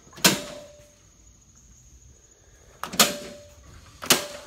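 Three sharp clacks, each followed by a short metallic ring: one just after the start, one about three seconds in and one about a second after that. These are the utility circuit breakers being switched off to simulate a power outage for a standby-generator test.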